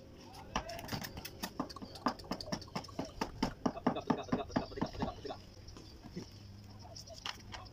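Rapid, evenly spaced sharp clicks or knocks, about five a second, starting about half a second in and stopping after about five seconds, with a couple more near the end.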